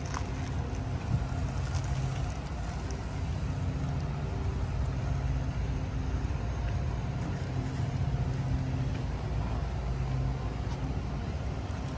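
A vehicle engine running steadily at idle: a low hum whose pitched drone swells and fades a little.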